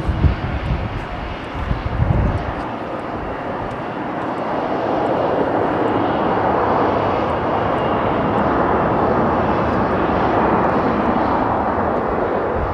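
Boeing 747-400ERF freighter's four jet engines in reverse thrust during the landing rollout: a broad roar that swells from about four seconds in and holds steady. It follows a gusty low rumble in the first two seconds.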